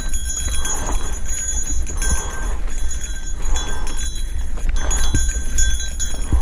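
Mountain biker's heavy, rhythmic breathing while pedalling up a steep rocky climb, with occasional clicks and knocks of the tyres over loose rock and a steady low rumble.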